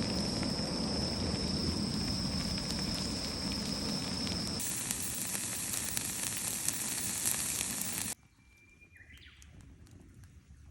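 Food sizzling over a campfire, with fire crackle. The sound changes abruptly about halfway through, to a brighter, louder hiss, then drops suddenly to a much quieter stretch near the end.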